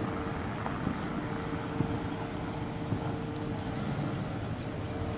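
Steady outdoor street ambience: a low rumble of road traffic with a faint steady hum and a few faint knocks.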